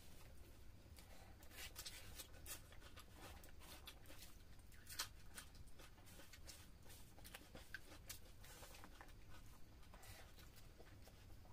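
Faint eating sounds of two people eating rice and fish head curry by hand: scattered soft clicks and smacks from fingers working food on plates and from mouths chewing, with one sharper click about five seconds in.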